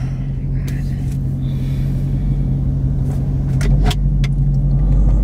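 Low steady rumble of the car running, heard inside the cabin, growing a little louder about three and a half seconds in. A few light clicks sound shortly before that.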